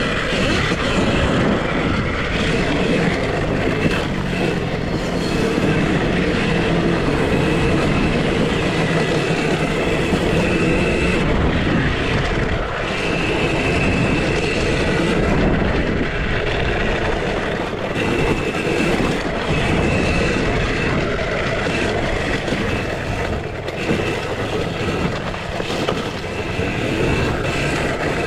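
2023 KTM SX-E5 electric youth motocross bike being raced over a dirt track: a steady rattling, rushing ride noise with a high whine that comes and goes.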